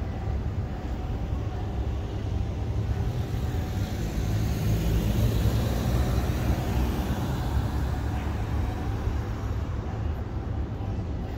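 Vehicle noise: a steady low rumble that swells louder and brighter through the middle and eases off again.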